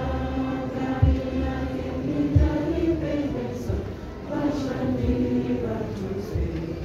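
A group of voices singing together in long held notes, with a low thump about every second and a bit underneath.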